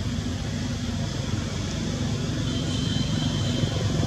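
An engine running off in the background, a low steady hum that grows gradually louder.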